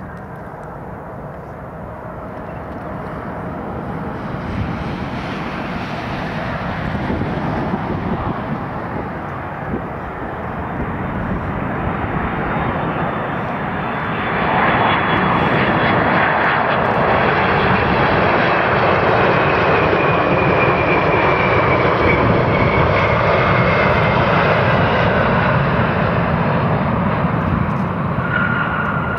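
Airbus A330-200 airliner's jet engines running on final approach, growing louder as it nears, with a high fan whine that falls in pitch as the aircraft passes.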